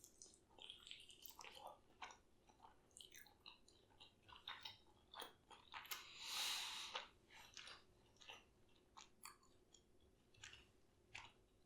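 Faint, close-up chewing of a sauced, Cheetos-coated chicken wing: soft wet mouth clicks scattered throughout, with a brief breathy hiss about six seconds in.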